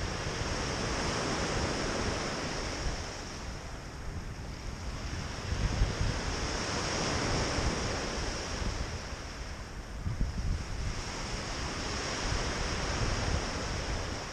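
Small Lake Superior waves breaking and washing up a gravel beach, the surf swelling and easing about every five or six seconds, with wind rumbling on the microphone.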